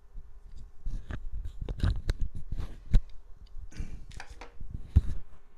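Handling noise from a small shotgun microphone and its phone mount: irregular light clicks, taps and rubbing of plastic parts, a few sharper knocks among them.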